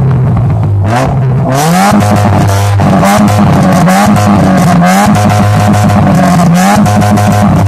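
Modified Mitsubishi Lancer Cedia's engine being revved while parked, through a loud aftermarket exhaust. It runs in repeated blips, each climbing from idle, holding briefly, then falling back.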